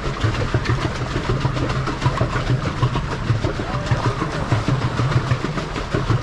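Water churning and splashing right at the microphone as a pedal boat moves across the lake, a continuous dense clatter over a steady low hum.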